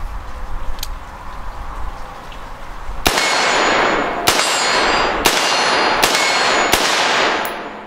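Five quick rifle shots from an AR-style rifle, about a second apart, starting about three seconds in. Each is followed by the ringing clang of a struck steel target.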